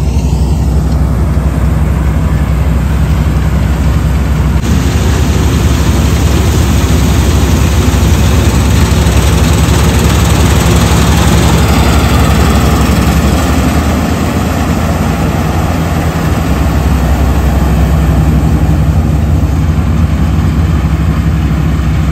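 Heavy farm-machinery engine running steadily at a constant speed, a deep hum with a broad hiss over it.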